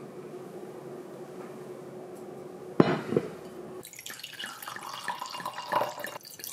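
Red liqueur poured from a bottle into a stemmed glass, splashing and gurgling as the glass fills. A single sharp knock of glass comes just before the pour.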